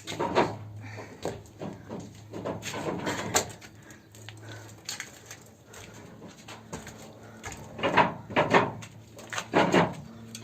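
Irregular knocks, scrapes and rustles of someone handling an electrical wire and moving about on the boards of a roof space, in several clusters over a low steady hum.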